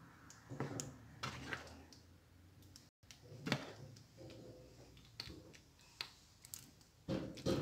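Faint, separate scrapes and clicks of a cooking spoon stirring thick potato-tomato curry in a nonstick pan. A louder, brief sound comes in near the end.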